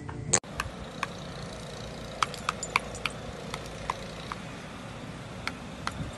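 A sharp click near the start, then about a dozen light metallic clinks, irregularly spaced, over a steady low rumble.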